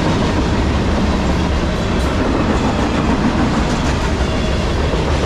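Freight cars of a CSX manifest train rolling past close by: a steady loud rumble of steel wheels on the rails with a rhythmic clickety-clack.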